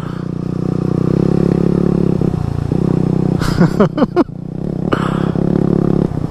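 Dirt bike engine idling steadily, with a short falling cry from a rider about three and a half seconds in.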